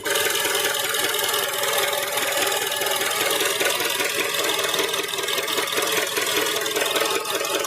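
Honda 2-litre petrol engine idling in Drive under load, steady, with the ticking of its fuel injectors and a rattling, diesel-like knock. The owner traces the knock to the exhaust manifold; others have suggested valve clearance, piston slap or rod knock.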